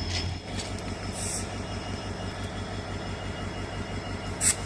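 Passenger train running along the track, heard from on board: a steady low rumble with a fast, even pulse from the wheels. A short, sharp high hiss near the end is the loudest moment.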